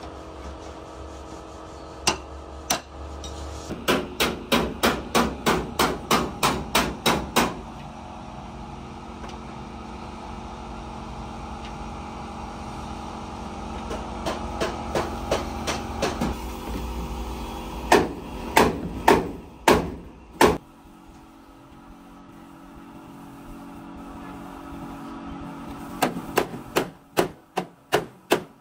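Hammer striking metal in runs of quick blows, about three or four a second, with pauses between runs; the third run is slower and louder. A steady low hum runs underneath and stops about twenty seconds in.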